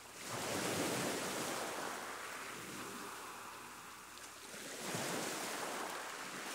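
Ocean surf washing onto a beach, two swells of rushing noise, one rising about a second in and another about five seconds in.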